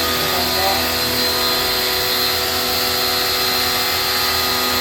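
A motor-driven machine running steadily, with a hum and several fixed whining tones over a constant rushing noise.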